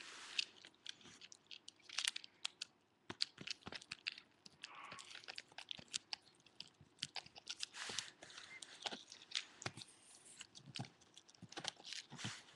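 A small dog chewing and gnawing a white chew bone: a steady run of irregular crunches and clicks of teeth on the bone.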